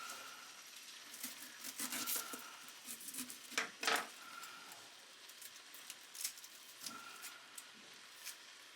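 Knife cutting an onion on a cutting board: scattered, irregular clicks and knocks, heaviest about three and a half to four seconds in.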